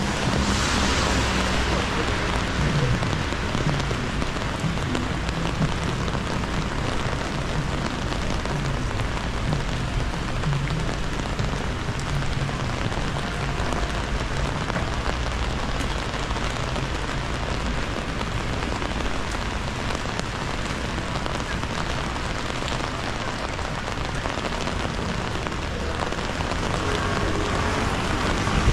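Steady rain pattering on an umbrella overhead and on the wet pavement, with a steady low rumble underneath.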